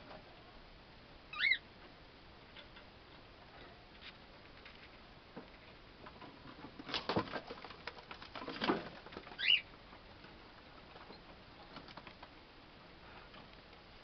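Young cockatiels in a cage: two short rising chirps, one about a second and a half in and one near ten seconds in, with a run of scratching and wing fluttering between them as a bird scrabbles about the cage.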